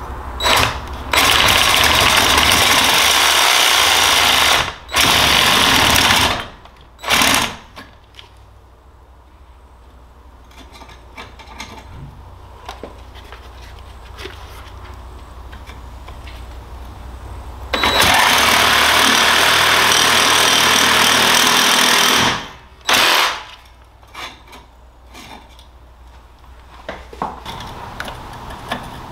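DeWalt cordless reciprocating saw cutting through a Humminbird Mega 360 transducer shaft to shorten it, running in loud stop-start bursts. There is one long run of a few seconds, two short bursts, then a quieter stretch of handling before another run of about four seconds and a last brief burst.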